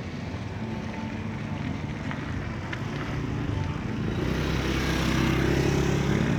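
A motor engine running with a steady low hum that grows louder as it approaches, loudest near the end.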